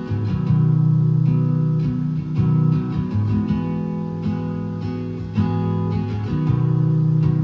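Acoustic guitar strumming chords in a steady rhythm, an instrumental passage between sung verses.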